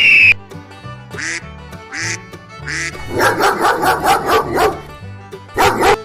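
A duck quacking in a quick run of about eight quacks, with shorter calls before it and a loud one near the end. Background music with a steady bass line plays underneath.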